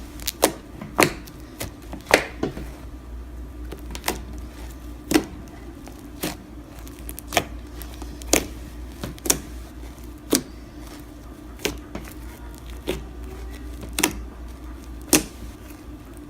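Fluffy slime with foam beads being squeezed and kneaded by hand, giving sharp clicking pops roughly once a second.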